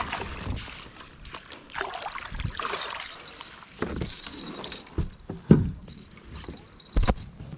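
Water splashing and sloshing around a kayak, with scattered knocks and thumps against the hull as the angler handles a caught fish; the sharpest thumps come about five and a half and seven seconds in.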